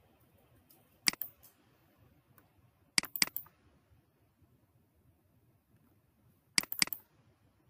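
Computer mouse clicking: three quick pairs of sharp clicks, about a second in, about three seconds in and near the end.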